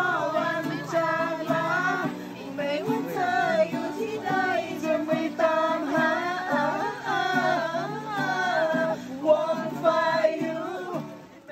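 A song with a singing voice over instrumental accompaniment, fading out near the end.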